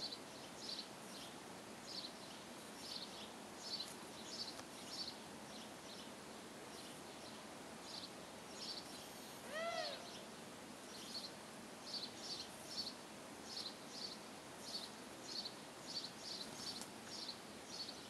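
Small birds chirping in short, high notes, repeated in loose groups. About halfway, a single louder, lower call that rises and falls in pitch.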